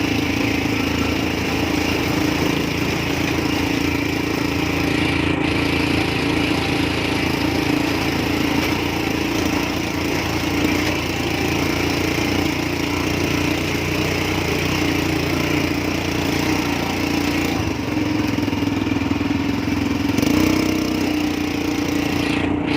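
ATV engine running steadily, a continuous drone with little change in pitch.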